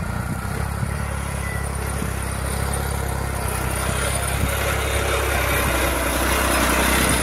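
New Holland 3630 tractor's diesel engine running steadily as it pulls a tine cultivator through straw-covered soil, getting slowly louder as the tractor comes closer.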